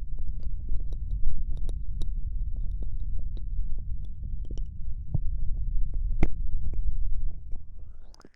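ASMR mouth sounds close to the microphone: many soft wet clicks and smacks over a low, muffled rumble that fades near the end.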